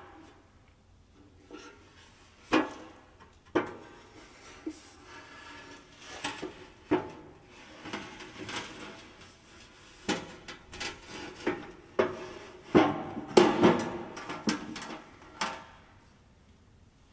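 Irregular metallic clanks and knocks of a steel oil pan being handled and worked up into place against the underside of the engine block. The clatter is busiest about 13 seconds in.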